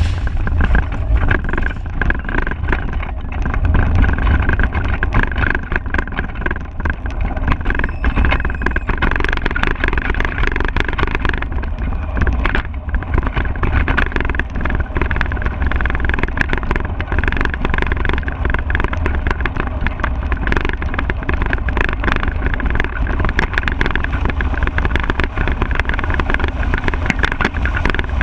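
Unpowered soapbox cart rolling fast down an asphalt road, heard from on board. The wheels rumble and the chassis rattles with many small knocks, mixed with rushing air. The noise comes up at once as the cart sets off and then stays steady.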